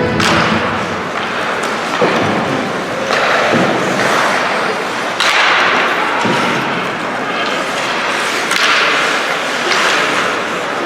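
Ice hockey play on a rink: skates repeatedly scraping and carving the ice, with several sharp knocks and thuds of sticks, puck and players against the boards.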